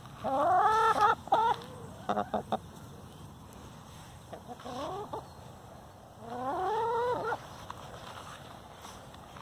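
Chicken hens calling: two long, drawn-out, rising squawks of about a second each, one near the start and one about two-thirds in, with a shorter call and a few quick clucks between them.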